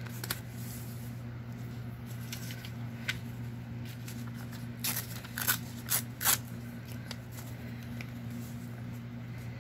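Hands handling paper, with a few short crisp rustles and crackles of paper about five to six seconds in, over a steady low hum.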